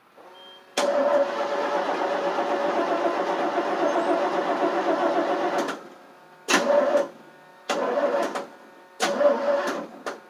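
Carbureted engine of a 1988 FMC 6000 cranking on its starter without catching: one long crank of about five seconds, then three short cranks. It does not fire because no fuel is reaching the carburetor.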